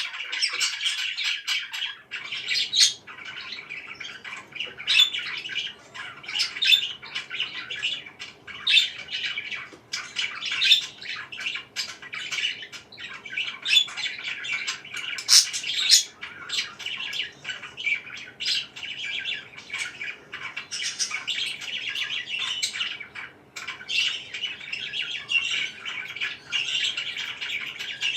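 Pet parakeets chirping and squawking without a break: a steady chatter with many short, sharp calls over it.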